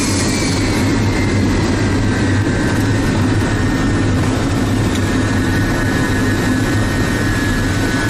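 MiG-31BM's twin jet engines running as the jet rolls along the runway, heard inside the cockpit: a steady rumble under a high whine that falls slightly in pitch during the first few seconds.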